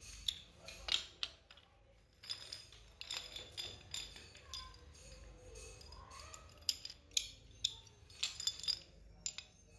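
Light metallic clicks and clinks as steel return springs are hooked onto aluminium motorcycle brake shoes and the shoes are handled against each other, in scattered bunches of sharp taps.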